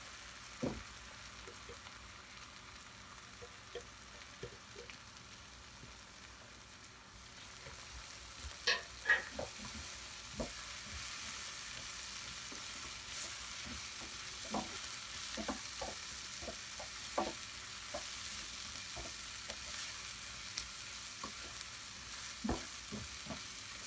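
Sliced onions with crushed ginger, garlic and green chillies sizzling in coconut and cooking oil in a non-stick pan while a silicone spatula stirs them, with scattered light taps and scrapes of the spatula against the pan. The sizzle grows louder about eight seconds in.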